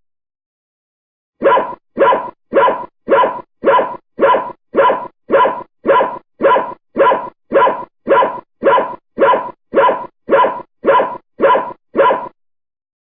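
A dog barking from far away in one long, even series of about twenty barks, nearly two a second, starting about a second and a half in and stopping shortly before the end.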